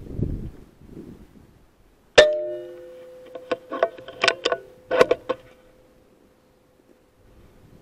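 Air rifle shot: one sharp crack about two seconds in, with the metal feeder ringing after it. Over the next three seconds comes a quick run of sharp metallic clicks and knocks, while the ring fades out by about seven seconds.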